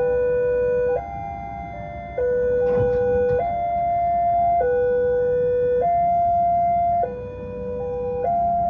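Railway level-crossing warning alarm sounding a steady electronic two-tone signal, switching between a lower and a higher pitch a little less than once a second: the crossing is warning of an approaching train.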